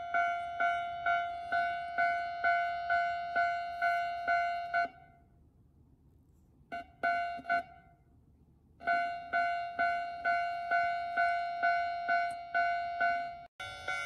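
Electronic railway level-crossing alarm from a 1986 Sankosha oscillator unit, playing its repeating 'kan-kan' tone through a loudspeaker, a little over two strikes a second. The sound cuts out for about four seconds partway, sputters back in a few short bursts, then resumes and drops out briefly again near the end. The dropouts come from the nearly broken speaker wire.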